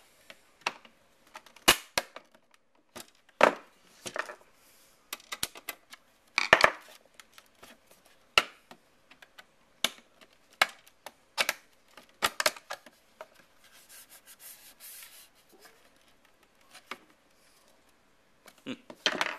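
Irregular sharp clicks and knocks of hands and a tool working at the plastic case of an old Apple floppy disk drive that is resisting being opened, with a few seconds of scraping past the middle.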